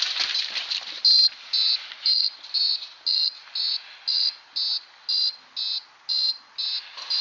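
Electronic game-device alarm beeping, a high-pitched steady beep repeated about twice a second, roughly a dozen times. It sounds just as the round ends with the defusal called complete. The first second holds scattered clicks.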